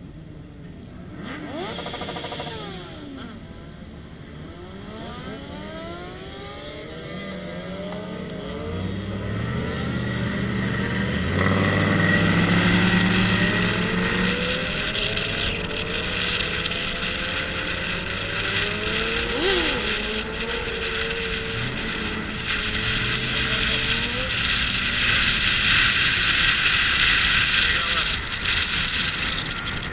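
Car engine accelerating and running at speed, heard from inside the cabin. Its pitch rises and falls repeatedly at first. The sound then settles into a steady drone with a growing hiss of road and wind noise and gets louder over the stretch.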